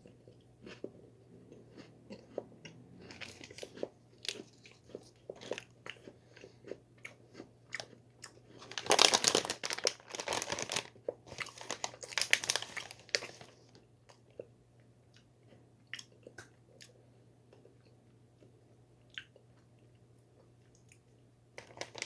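A chocolate-coated biscuit (Bourbon Alfort, green-tea flavour) being bitten and chewed close to the microphone: many small crunches, with a louder run of crunching about halfway through.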